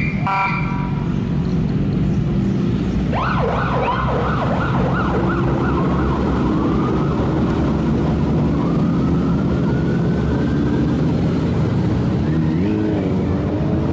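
Police escort car siren: a short tone at the start, then quick up-and-down yelping sweeps, then one slow rising wail. Beneath it is the steady low engine noise of a slow-moving motorcycle convoy.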